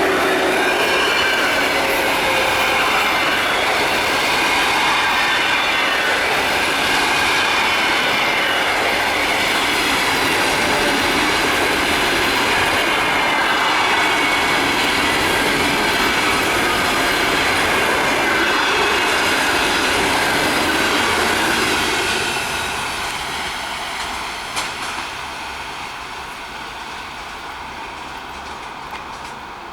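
A locomotive-hauled passenger train passing close by, its wheels clattering over the rail joints with a wavering high squeal. About 22 seconds in the sound starts to fade as the train draws away.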